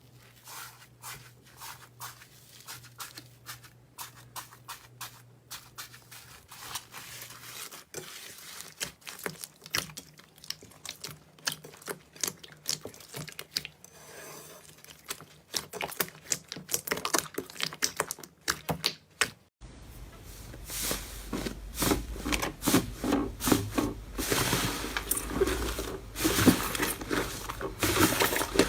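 Slime being squeezed and worked by hand, making dense, irregular small clicks, crackles and sticky pops; about twenty seconds in it cuts to a louder clip of the same kind of sound.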